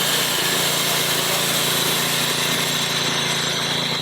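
Norwood portable band sawmill cutting wood: the band blade gives a steady hiss over the even hum of its running gas engine.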